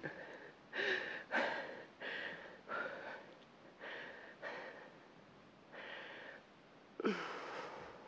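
A woman breathing hard under exertion while rowing a dumbbell: short audible breaths in and out, about one a second, with a voiced sigh falling in pitch near the end.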